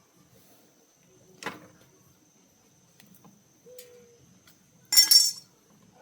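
A faint steady high-pitched whine, with a sharp knock about one and a half seconds in and a loud double clink near the end.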